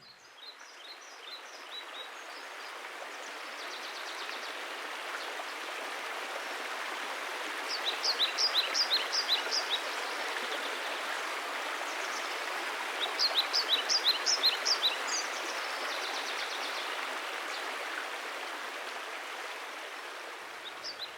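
Flowing stream water running steadily, fading in at the start and out near the end. A small bird sings twice in the middle, each time a quick run of short, high, falling notes.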